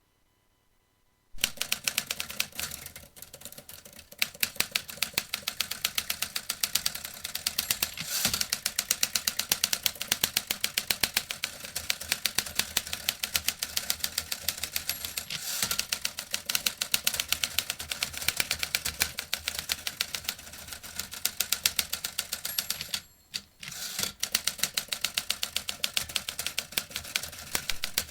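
Vintage typewriter being typed on: a fast, steady run of key strikes that starts about a second in, with a brief pause near the end before the typing resumes.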